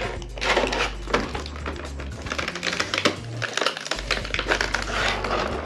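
Clear plastic blister packaging crackling and clicking as it is handled and pulled apart, with background music carrying a steady bass line underneath.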